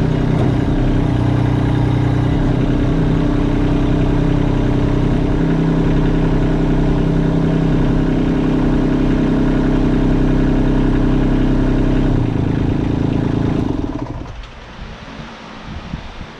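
Kubota LX compact tractor's diesel engine idling steadily, then shut off about fourteen seconds in.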